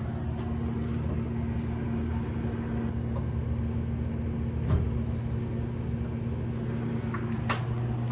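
LCN 4630/4640 Series automatic door operators running, a steady low hum, with a single knock about halfway through.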